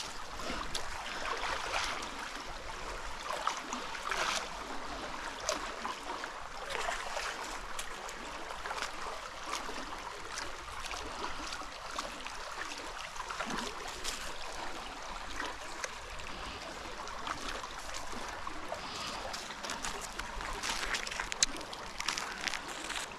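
Shallow creek water flowing steadily, with scattered small clicks and rustles as a magnet-fishing rope is hauled in through wet grass and leaves.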